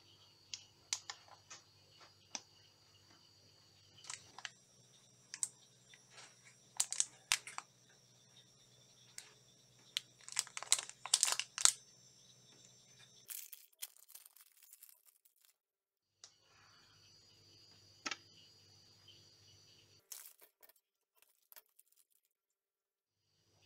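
Plastic snack wrapper crinkling and crackling as it is handled, sharp crackles coming thick and fast for the first dozen seconds. This is followed by a rushing tear as the wrapper is opened, then a few scattered rustles and clicks over a faint steady hum.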